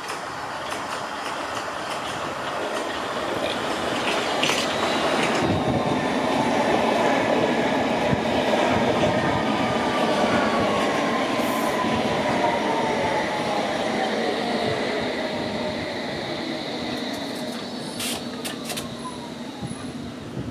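London Underground S Stock Metropolitan line train arriving at the platform and braking to a stop: wheel and track noise swells as it passes close, then eases while the traction motor whine falls steadily in pitch as it slows.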